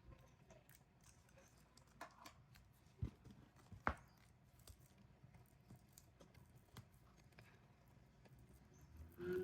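Faint handling of an album package in its plastic wrap: light crinkles and clicks, with two soft knocks about three and four seconds in.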